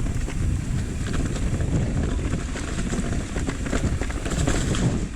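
Orbea Wild FS electric mountain bike riding along a dirt trail: wind buffeting the camera microphone as a steady low rumble, with tyres crunching over the trail surface and the bike rattling in quick irregular clicks.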